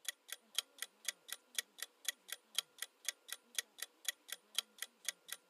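Quiz countdown timer sound effect: a clock ticking steadily, about four ticks a second.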